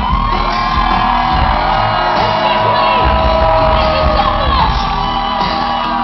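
Loud live band music with a sung melody over heavy bass, heard from within the audience, with the crowd whooping and shouting.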